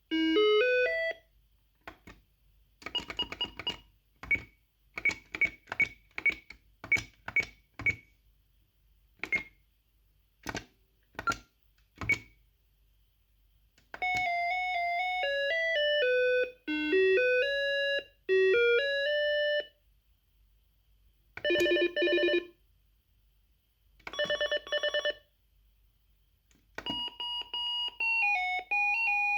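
Cyfral Intel apartment intercom playing its electronic call melodies one after another while its ring tone is being changed. A short rising tune is followed by a string of short beeps, then a longer tune, two brief warbling rings and another tune starting near the end.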